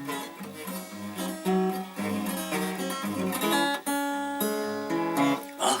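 Acoustic guitar strumming chords, about one strum a second: the instrumental introduction before the song's first sung line.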